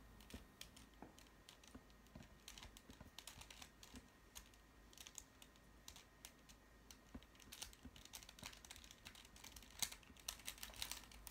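Faint, irregular clicking of a Rubik's cube's plastic layers being turned by hand, in quick runs of clicks with short pauses between them.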